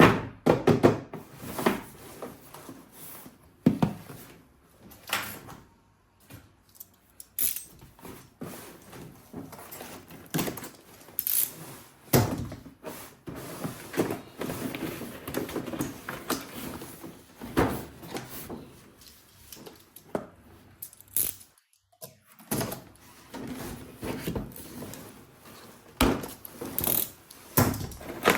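Irregular clicks, knocks and scraping of objects being handled at close range, with a sharp knock every second or two and a brief lull a little before the end.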